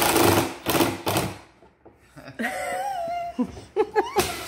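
Power drill driving a screw into the plastic step stool, running on until about half a second in, then two short bursts. In the second half a toddler whimpers and fusses in short wavering cries, upset by the drill noise.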